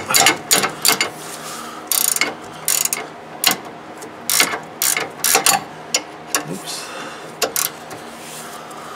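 Socket ratchet clicking in short runs as the castle nut is tightened on a steering-linkage ball-joint stud, drawing the tapered stud up into its hole.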